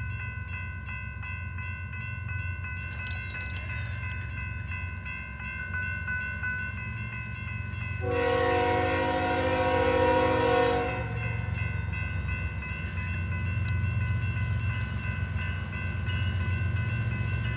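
Diesel-electric GE ES44DC locomotive leading a freight train, rumbling steadily under a high steady whine. One horn blast of about three seconds comes near the middle.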